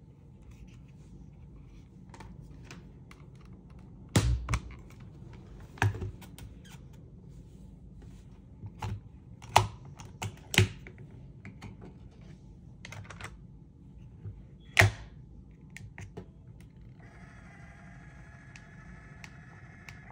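Plastic clicks and knocks as a Sony Discman D-88 portable CD player is handled, its lid and parts snapped and a headphone plug pushed into its jack. Near the end a steady whir with several tones sets in for about three seconds as the player starts up with a disc loaded.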